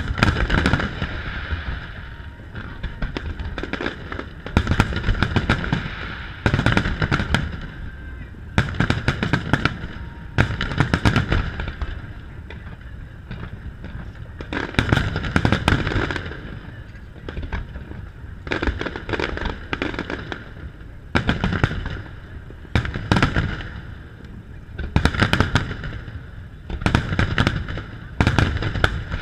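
Aerial fireworks display: shells bursting in rapid volleys, clusters of sharp bangs and crackles coming every couple of seconds, with a low rumble carrying between them.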